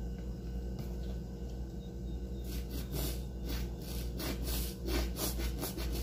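Quick rubbing and scraping strokes from handled cleaning things, about three a second, starting a little before halfway through, over a low steady hum.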